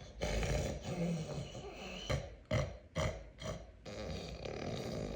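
A person snoring: a long, rough, low snore, then a run of short, sharp snorts about every half second, then rough snoring again.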